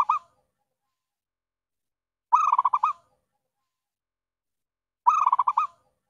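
Zebra dove (perkutut) cooing: a short phrase of quick pulsing notes, repeated about every two and three-quarter seconds, twice in full after the tail of one at the start. It is a lure call for bringing in wild zebra doves.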